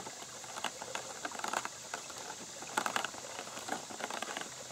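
Fingers tapping and scratching on the ridged side of a clear plastic water bottle: a run of small, irregular clicks and crinkles, busiest around a second and a half in and again near three seconds.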